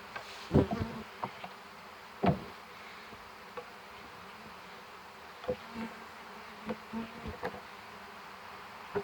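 Honey bees buzzing steadily, broken by several sharp knocks, the loudest about half a second in and another just after two seconds.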